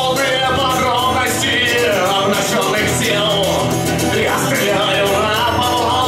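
Amplified acoustic-electric guitar strummed hard in a steady driving rhythm, with a man singing over it into a microphone.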